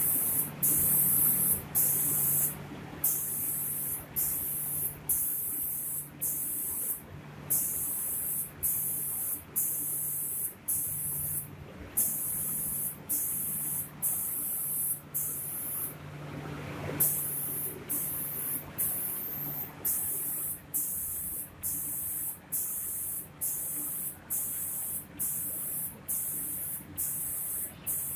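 Spray guns of an automatic door painting machine hissing in repeated bursts, about one a second with short breaks between them, over a steady low machine hum.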